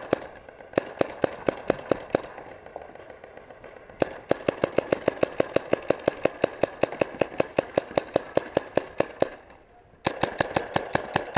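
Paintball markers firing in rapid strings of sharp pops, about eight shots a second, in several bursts with short pauses, the longest lasting about five seconds.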